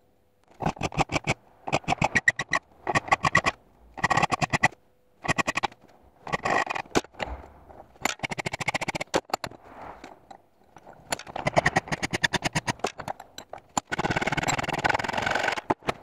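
Hand file rasping across a steel piece clamped in a vise, in repeated strokes about once a second, with a longer unbroken stroke near the end.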